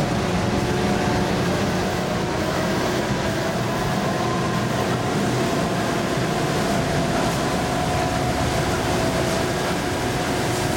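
Drilling rig machinery (drawworks and engines) running steadily while drill pipe is pulled out of the hole, a constant machine noise with a steady whine over it.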